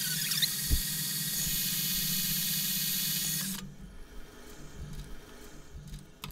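Metal lathe running with a steady high whine and low hum, then switched off about three and a half seconds in. After that, a few light clicks and taps as the part and chuck are handled.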